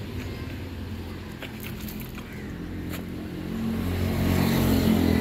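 An engine running steadily with a low hum, growing louder about three and a half seconds in.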